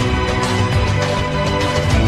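Background music with held synth notes and a steady driving low beat.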